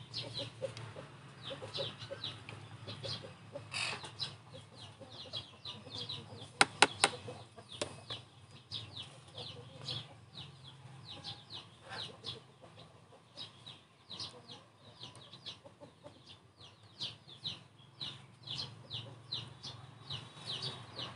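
Chickens in the background: a steady stream of short, high, falling peeps, several a second, with a few lower clucks, over a low steady hum. Three sharp clicks come close together about seven seconds in.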